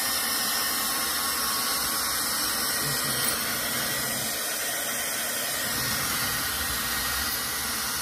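Dyson Supersonic-style hand-held hair dryer running at a steady speed: an even rush of blown air.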